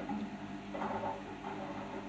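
Arçelik 5083 washing machine in its final spin: a steady motor hum, with two short noisy sounds from the drum, about a second in and again a little later.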